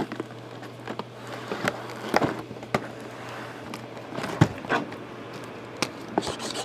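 A shrink-wrapped Topps Allen & Ginter cardboard hobby box being pulled from a stack of boxes and turned over: scattered light knocks and scrapes, the loudest about four seconds in, over a steady low hum.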